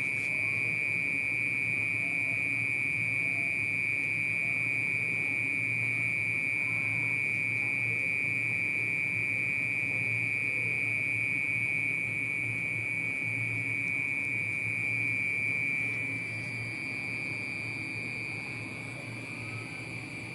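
A steady, unbroken high-pitched tone with a low hum beneath it, a little quieter from about three quarters of the way in.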